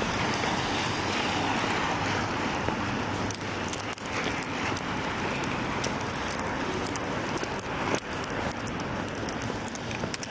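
Outdoor village street ambience: a steady hiss of background noise with many small clicks scattered through it.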